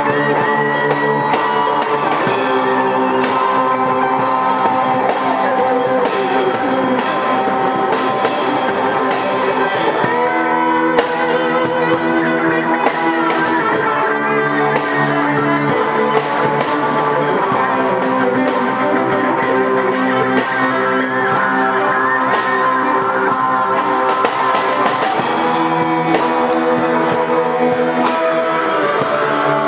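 Rock-style band music: several guitars playing sustained melodic lines over a drum kit keeping a steady beat.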